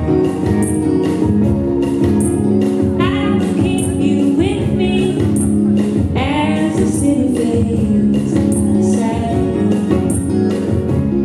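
Live folk band playing: acoustic guitar, electric bass, keyboards and drums under steady held chords, with a voice singing a couple of sliding phrases in the middle.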